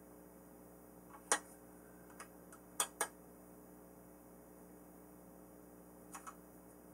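Scattered sharp clicks of a hex driver working the wing bolts of a foam RC plane: a loud one about a second in, a pair near three seconds and another pair near the end, over a faint steady electrical hum.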